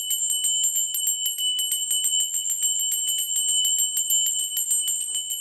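Small brass hand bell shaken rapidly, its clapper striking in a fast, even rhythm over a steady high ring. The shaking stops near the end and the ring fades away.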